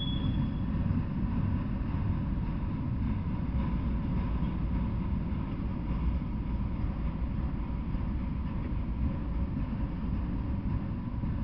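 Freight train of autorack cars rolling past at steady speed: a continuous low rumble of wheels on rail, with a short high wheel squeal dying away right at the start.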